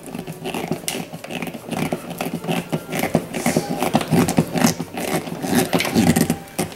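A hand screwdriver twisting a self-drilling corkscrew anchor into drywall: a fast, irregular run of clicks and gritty scrapes as the threads cut into the gypsum.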